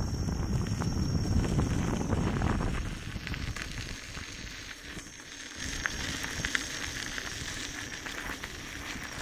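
Gotway MSuper3 electric unicycle's tyre rolling over a gravel path: a steady crackling crunch of small stones. Wind buffets the microphone as a low rumble for the first few seconds, then eases.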